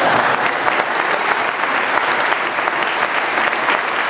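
A church congregation applauding: many hands clapping at once in a dense, steady patter.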